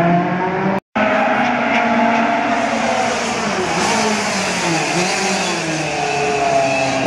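Historic rally car engine revving hard, its pitch falling and climbing again as it is worked through a tight chicane. The sound cuts out briefly about a second in.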